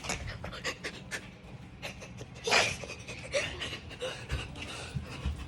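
A person breathing hard close to the microphone, among short clicks and rustles, with one louder hissing breath about two and a half seconds in.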